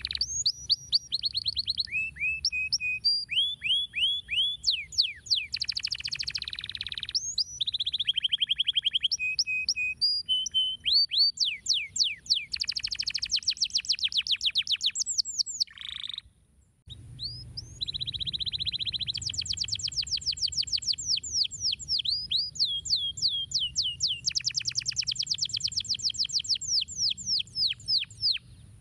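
Domestic canary singing a long, varied song of rapid trills and sweeping whistled notes, with a break of about a second midway.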